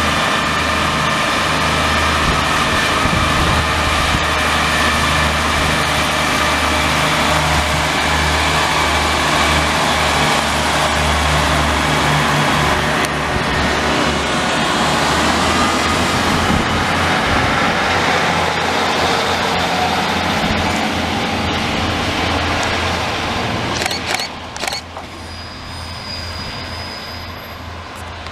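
Diesel multiple unit's underfloor diesel engine running hard as the train pulls away and passes, a steady low drone with rail noise. It drops away about 24 seconds in as the train recedes.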